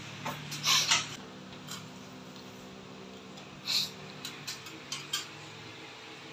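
Small clicks, ticks and rubbing as an LED strip light is pressed by hand into the groove of a WPC fluted wall panel, over a steady low hum.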